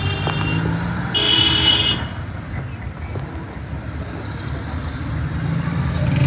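Steady engine and road rumble of a vehicle driving through slow town traffic, with a vehicle horn sounding once for about a second shortly after the start.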